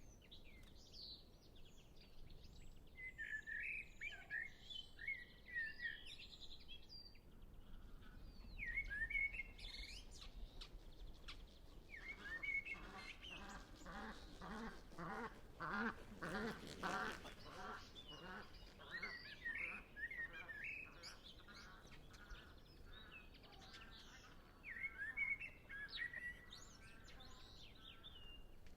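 A common blackbird singing in fluty phrases with pauses between them, with other birds singing faintly. In the middle, a flock of white-fronted geese passes over with a regular pulsing sound about twice a second that swells for a few seconds and fades.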